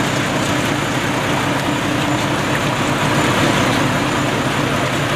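Coach bus engine idling steadily.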